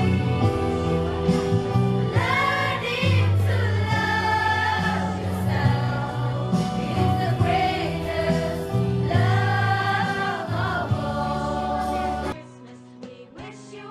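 A school choir of teenage students singing together. About twelve seconds in the singing cuts off suddenly and a quieter music track takes over.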